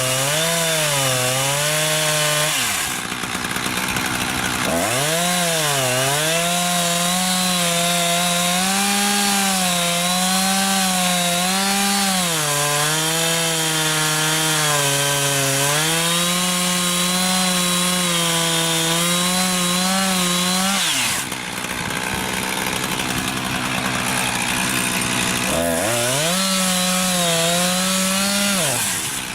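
Husqvarna 359 two-stroke chainsaw cutting wood at full throttle, its pitch dipping and wavering as the chain bites. The engine drops back toward idle twice, about three seconds in and again near twenty-one seconds, then revs back up. The owner thinks the chain is a bit dull.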